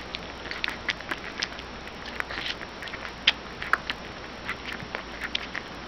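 Newborn puppy suckling milk from a baby bottle: quick, irregular wet smacking clicks, several a second, with one louder click about three seconds in.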